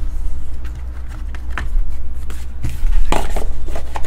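Cardboard trading-card hobby box being handled, with short rustles and clicks and a louder rustle about three seconds in, over a steady low hum.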